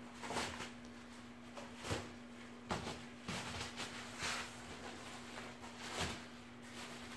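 Plastic packaging wrap rustling and crinkling in a handful of short, irregular bursts as kittens play in it, over a faint steady hum.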